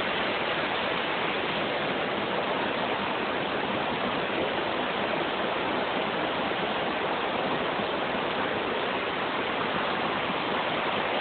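Steady rush of flowing stream water near a waterfall, an even hiss with no breaks.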